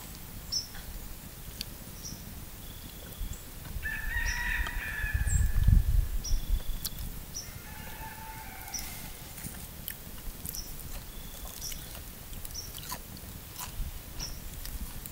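A rooster crowing, a long call about four seconds in and a shorter one near nine seconds. Short high chirps from small birds come throughout, and a low rumble rises about five seconds in.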